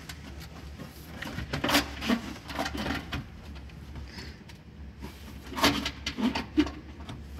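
Knocks, clicks and light scraping of a large car part being handled and worked into place, coming in two bursts, one starting about a second in and another a little past the middle.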